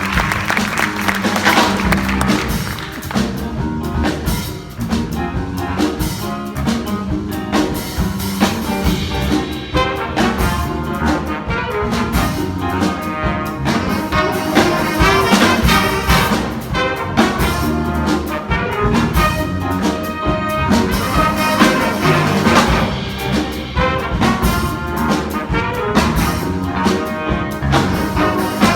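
Brass-led jazz music, trumpets and trombones playing over a steady beat.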